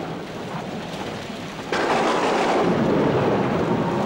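Thunderstorm: steady rain, then a sudden loud thunderclap a little under two seconds in that slowly dies away.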